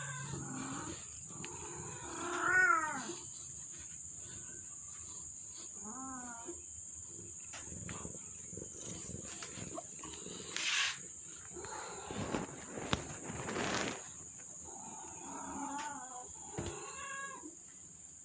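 Cats meowing several times at close range, short rising-and-falling calls with the loudest about two and a half seconds in. A steady high insect drone, like crickets, runs behind them.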